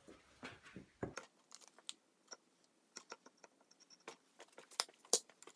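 Light metal clicks and taps from the large drive gear of a Van Norman Model 12 mill's table-feed transmission being turned and worked down onto its shaft, with gloved hands rubbing on it in the first second. The clicks come irregularly, two or three a second, and the two loudest fall close together near the end.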